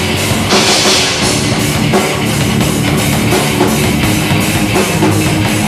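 Live heavy rock band playing an instrumental passage between vocal lines: distorted guitar and drum kit, with steady rapid drum strokes and a loud burst of high cymbal-like noise about half a second in.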